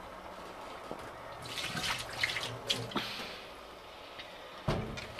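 Liquid trickling and dripping through a hanging bag of mashed grain into the brew kettle below during the sparge. A single knock near the end.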